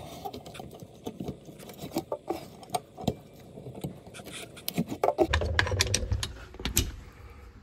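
Scattered clicks, taps and light clatter from a hand working inside the sink opening of an InSinkErator garbage disposal. The clicks come thicker, over a low rumble, in the last two seconds or so.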